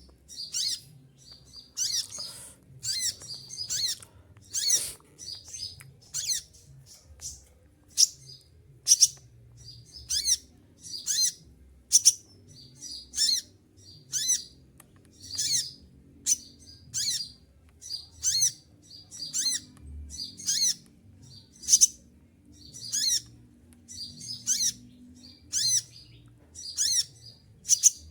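An olive-backed sunbird (konin) giving a rapid series of short, shrill calls, about one a second. These are the sharp repeated 'tembakan' (shooting) calls that birdkeepers prize.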